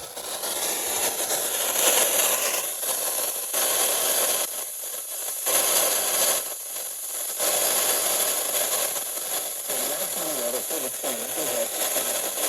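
Radio static: a steady hiss with several brief drop-outs, and a faint wavering sound under it near the end.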